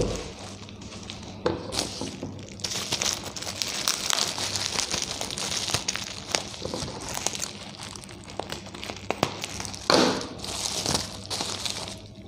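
Plastic bubble wrap crinkling and rustling as it is pulled off a small packet by hand, with sharper crackles about a second and a half in and again near ten seconds.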